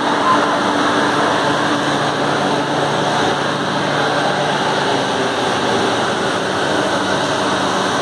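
Steady workshop drone: a continuous noise with a faint low hum under it, as from shop machinery and fans running.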